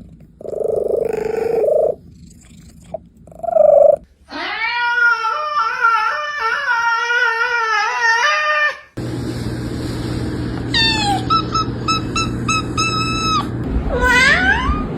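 Domestic cats vocalising in a string of separate clips: a long wavering yowl in the middle, then a quick run of short chirps, and a rising meow near the end.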